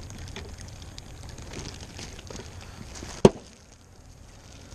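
Thin clear plastic bag crinkling and rustling as it is handled, with one sharp knock about three seconds in.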